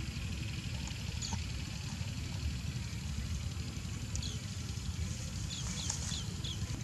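Wind rumbling on the microphone in an open grassy field, with scattered short high chirps of small birds, a cluster of them near the end.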